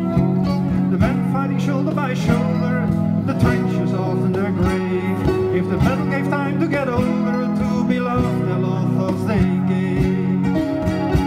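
Live instrumental passage from a small acoustic band: kora and guitar plucked over a steady cajon beat.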